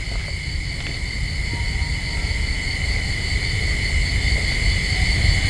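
Steady high trilling of crickets over a low rumbling drone that slowly grows louder.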